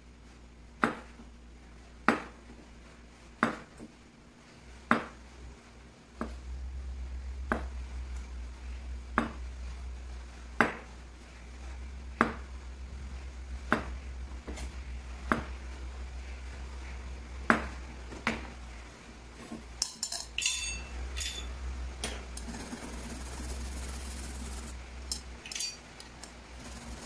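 Chef's knife slicing fresh wild mushrooms on a cutting board, one stroke about every second and a half, each ending in a sharp knock of the blade on the board, over a steady low hum. Near the end the strokes stop and a few clinks follow.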